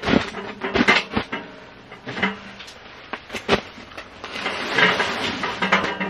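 Caminus M portable steel wood stove being set down and shifted into place on a fabric mat: several sharp metallic knocks and clunks, with rustling in between.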